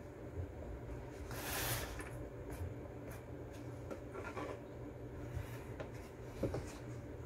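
Hands sliding a Bible in a zippered cover and a sheet of paper across a wooden tabletop: one brief rubbing swish about a second and a half in, then a few light taps and knocks as the book, paper and pen are set in place.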